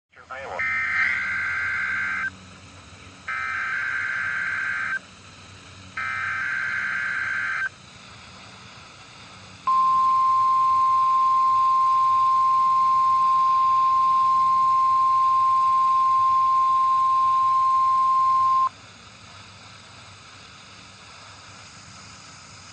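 Weather radio Emergency Alert System test: three harsh bursts of SAME digital header data, each under two seconds, then the 1050 Hz warning alarm tone held steady for about nine seconds, then only faint radio hiss. The sequence marks the start of a Required Weekly Test.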